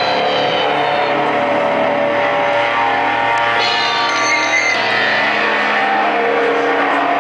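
Hollow-body electric guitar played loud and sustained, with a dense, droning wash of held chords. A cluster of high notes slides upward about three and a half seconds in.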